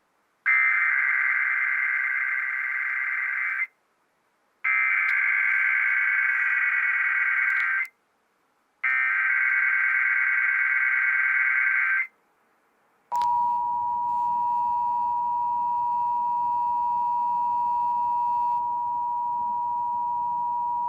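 Emergency Alert System test: three SAME header bursts of buzzing digital data, each about three seconds long with a second's pause between them. About 13 seconds in comes the steady two-tone EAS attention signal, which holds for about eight seconds and then cuts off.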